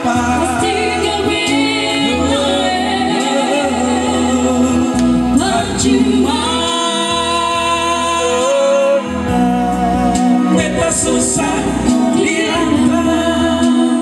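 A man and a woman singing an Ambonese song as a duet into microphones, with live accompaniment and a bass line underneath; several long held notes.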